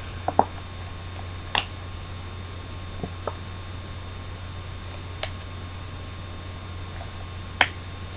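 Steady low electrical hum with a handful of brief, sharp clicks and taps scattered through it, from small objects being handled close to the microphone.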